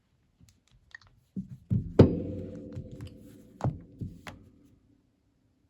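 Light clicks, then a hard knock about two seconds in followed by a low ringing tone that fades over about two seconds, and a few more sharp clicks near the end.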